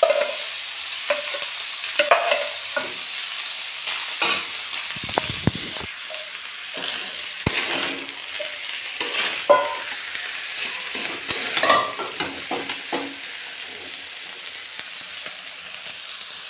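Rice sizzling as it fries in oil in a kadhai, stirred with a metal spatula that scrapes and clicks against the pan again and again. The sizzle eases off slightly near the end.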